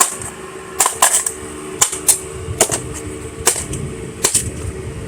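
Sharp knocks, about one a second with some in quick pairs, as a mould holding a wax-and-sawdust fire starter is knocked to loosen the plug. A steady low hum runs underneath.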